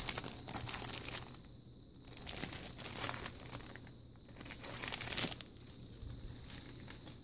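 Clear plastic packaging sleeve crinkling as it is handled, in three bursts a second or so apart, dying down after about five seconds.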